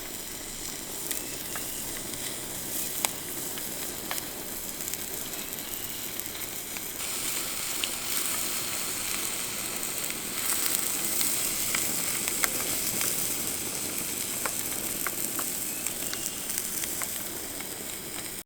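Food sizzling in a frying pan: a steady hiss with scattered small pops and spits. It grows a little louder about seven seconds in and again about ten seconds in.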